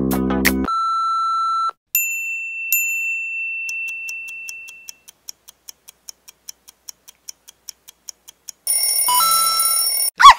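Sound effects for a quiz countdown. Background music cuts off, then comes a short beep and two ringing chime strikes, followed by a clock ticking about twice a second that fades out. An alarm-clock bell rings for about a second and a half near the end, and a single short bark sounds right at the close.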